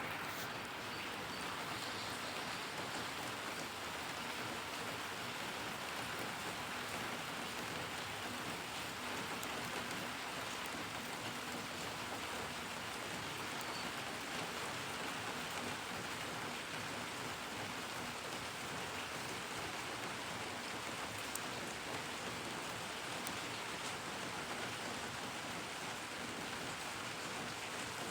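Steady rain falling and pattering on surfaces, an even hiss with scattered faint drop ticks.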